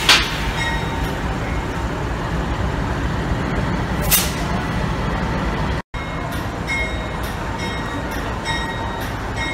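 Diesel engine of Pacific National NR class locomotive NR116 running with a steady low rumble as it pulls away from its uncoupled carriages, with a short hiss of air right at the start and another about four seconds in. The sound drops out briefly about six seconds in.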